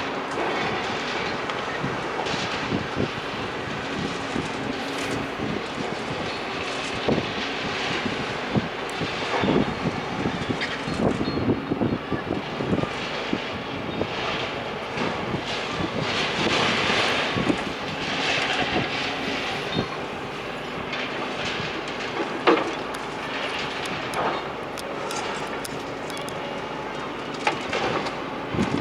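Demolition machinery working on a building: a continuous rumble and clatter of breaking masonry and debris, with many sharp knocks and a heavy machine's engine running underneath.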